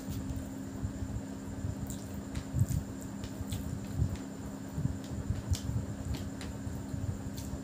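Eating sounds of fingers squishing and mixing biryani rice with chicken curry by hand, with scattered small clicks and soft low thuds. A steady low hum runs underneath.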